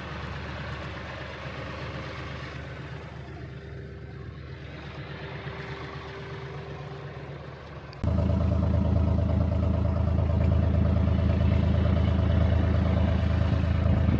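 A vehicle engine running steadily. About eight seconds in the sound jumps abruptly to a much louder, closer engine note with a steady whine above it.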